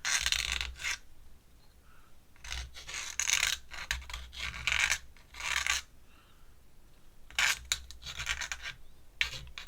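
Pen scratching across paper in a series of separate strokes, each lasting up to about a second, with short pauses between them.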